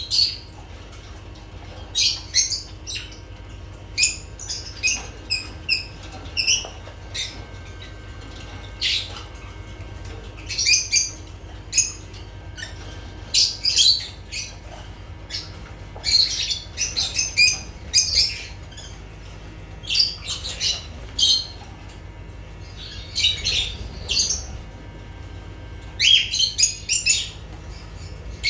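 Pet lovebirds chirping and squawking in short, sharp, high-pitched calls that come in clusters every second or two, over a low steady hum.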